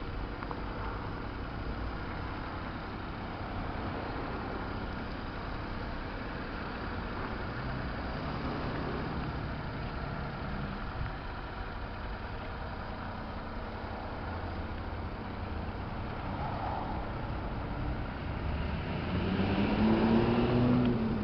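Daihatsu Hijet mini truck's small three-cylinder engine idling steadily. Near the end it is revved, louder and rising in pitch.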